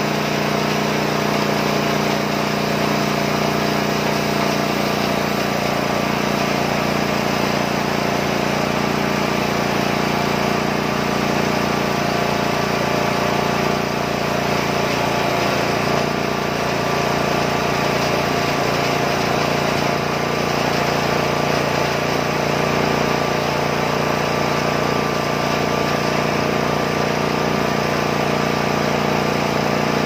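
Petrol engine of a homemade band sawmill running steadily under load while the band blade cuts along a red box log.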